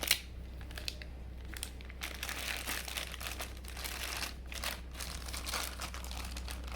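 Packaging crinkling and rustling as the boxed ceiling fan motor is handled and unwrapped, with a single sharp knock right at the start.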